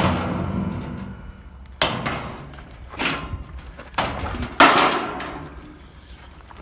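Hammer blows on the pool heater's casing during teardown, four hard strikes at uneven intervals, each ringing out and fading before the next.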